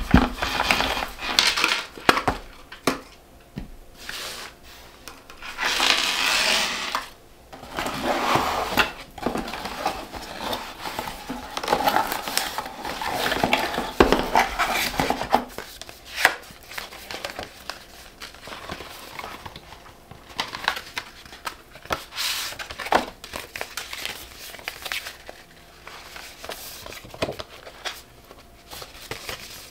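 Hands handling luxury packaging: paper and cardboard rustling and crinkling in irregular bursts, with sharp taps and clicks as items are moved and set down. Near the end, printed paper leaflets are unfolded.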